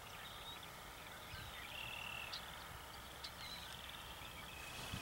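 Faint chorus of pulsed trilling calls from the wetland, overlapping one after another without a break, with a few short chirps between them over a low outdoor rumble.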